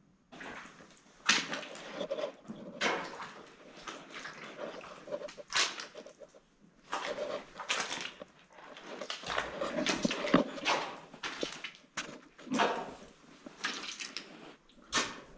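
Boots squelching and sucking through sticky oil sludge, one step about every second.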